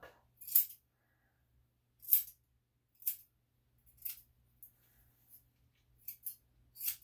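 Grooming shears snipping the hair just outside a Yorkshire Terrier's ear canal: separate crisp metallic cuts about once a second, with two in quick succession near the end.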